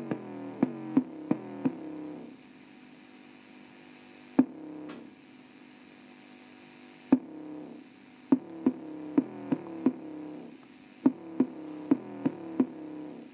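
Bass test music played through the small built-in speaker of an Orion VHS/CRT TV combo: a pitched synth tone with sharp drum-like hits, about three a second at first. A quieter stretch in the middle has only two hits, then the quick hits return near the end. The deep bass barely comes through.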